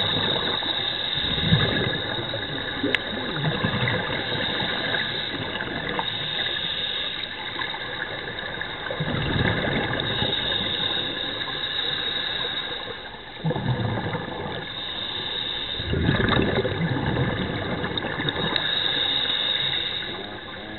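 Underwater sound picked up by a diver's camera: scuba regulator exhaust bubbles gurgling in bursts every few seconds over a steady hiss.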